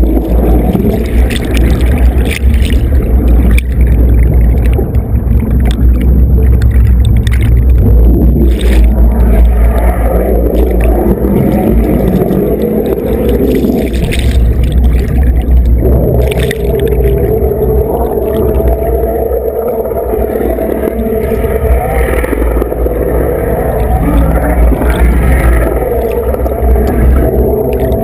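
Twin Yanmar drive units running under a boat hull, heard through an underwater camera: a loud, steady low rumble with churning propeller wash and bubbles, easing slightly about two-thirds of the way through.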